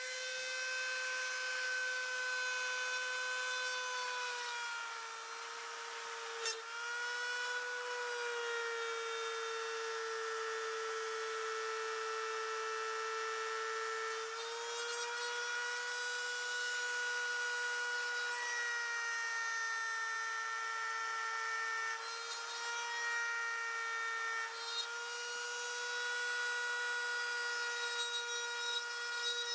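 Dremel rotary tool with a cutting bit running at high speed and cutting into kydex, a steady high whine whose pitch sags a little each time the bit bites under load.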